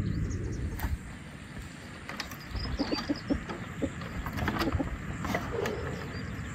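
Domestic hens clucking in short, scattered calls over a low steady rumble.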